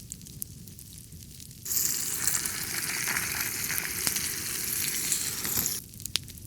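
Food sizzling in a hot pan over a crackling wood fire. The sizzle starts suddenly less than two seconds in, lasts about four seconds and cuts off sharply, while the fire's crackle goes on throughout.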